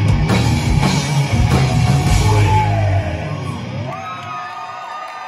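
Loud live hard-rock band playing, with drums, bass and distorted electric guitars, stopping about three seconds in. The crowd is left cheering and yelling.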